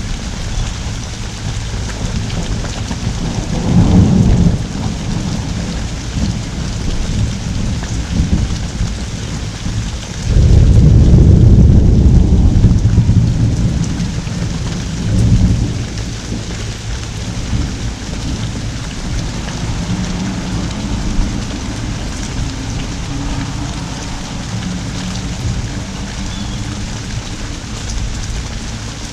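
Pouring rain hissing steadily, with thunder rolling through it. There is a short rumble about four seconds in, then a longer, louder roll of thunder from about ten seconds in that lasts several seconds and trails off with a brief rumble a little after.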